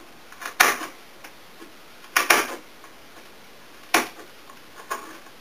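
A knife chopping peeled thistle roots on a cutting board: a handful of crisp crunches, crunchy like a carrot, a second or so apart.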